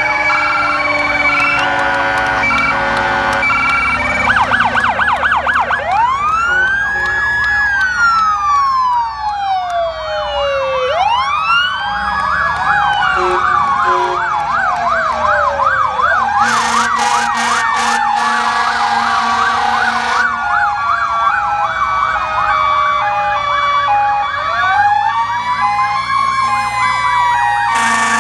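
Several fire engine and police sirens sounding at once as the vehicles pass. There are slow wails that rise and fall every few seconds, fast yelps, and an electronic two-tone hi-lo, with a short burst of hiss-like noise near the middle.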